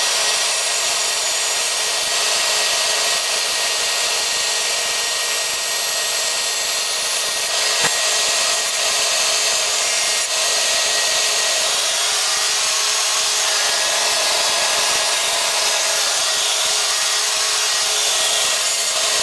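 Electric power sander running steadily, sanding hardwood oak runners down so they fit the table saw's slots.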